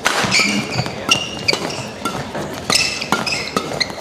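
Badminton doubles rally: sharp smacks of rackets striking the shuttlecock, mixed with repeated short high squeaks of court shoes on the court mat.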